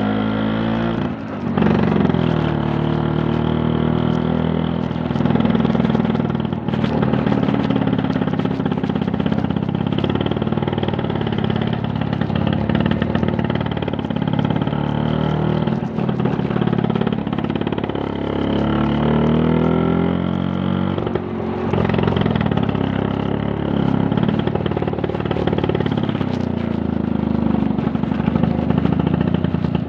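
Vespa PTS scooter's two-stroke single-cylinder engine running under way, its pitch repeatedly climbing and falling with the throttle, with brief drops about a second in, around seven seconds in and about twenty-one seconds in.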